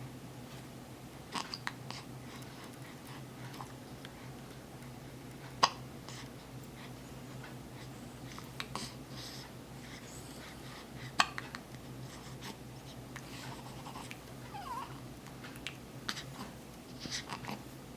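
A pet's hiccups: sharp single clicks about six seconds apart, with faint rustling and small squeaks between them, over a steady low hum.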